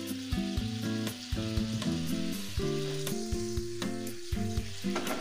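Tamarind sauce sizzling and bubbling in a non-stick frying pan with raw mustard oil just poured over it, under instrumental background music of short stepped notes.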